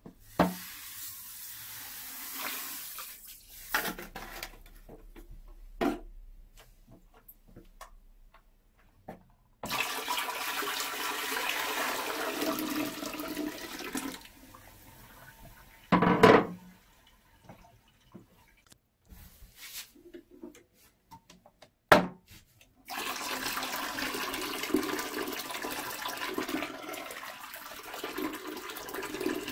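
Water poured from a plastic container into a toilet bowl in long, steady splashing pours. The last pour is hot water rinsing the bowl. Between the pours there are a few sharp knocks and clunks.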